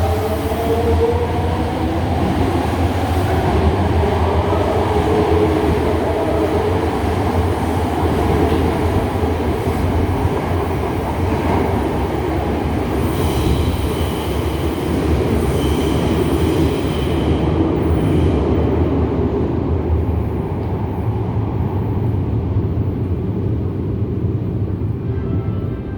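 Toei 5300 series electric train pulling out of a subway station: its GTO-VVVF inverter whine rises in pitch at the start, followed by steady motor and wheel running noise with some wheel squeal. The sound turns duller in its last few seconds as the train draws away.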